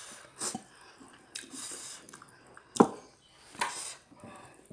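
A person eating rice and jengkol balado with their fingers, close to the microphone: a few separate wet chewing and mouth noises, the loudest a sharp click a little past halfway.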